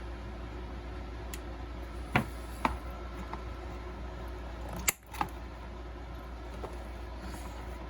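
A handful of short sharp clicks from hand work on a small plastic part, over a steady low hum.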